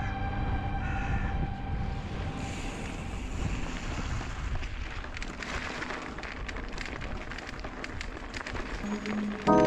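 Wind rushing over the microphone of a camera on a moving mountain bike, with many small clicks and knocks from the bike rattling over the trail. Background music fades out in the first second or so and comes back near the end.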